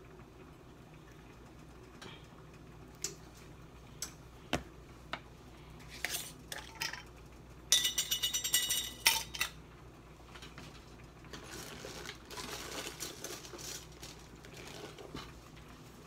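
Seasoning bottles and a small glass spice jar being handled on a kitchen counter. There are scattered clicks and clinks, then a loud ringing rattle of glass and metal just before the middle, then a soft rustling as seasoning is shaken out.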